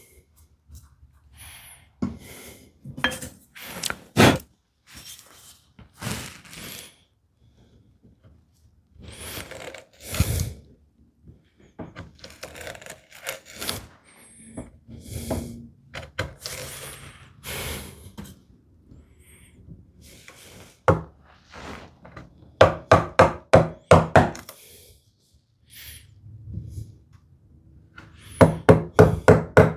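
Woodworking gouge paring and scraping wood in a groove, in short scattered strokes, then two quick runs of sharp knocks on wood, about four a second, in the last third.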